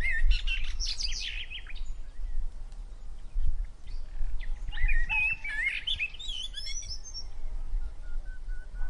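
Small birds chirping and twittering in quick, high, sweeping notes: a burst in the first two seconds and another starting around the middle, over a low rumble.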